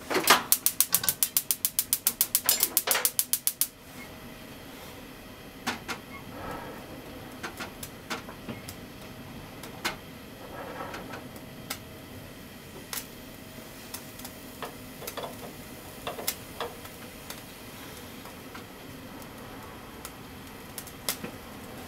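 Gas hob igniter clicking rapidly, about eight or nine clicks a second, for the first three and a half seconds as the burner is lit. After that the burner runs with a faint steady sound while the frying pan heats, with scattered single sharp ticks and a few brief crackles.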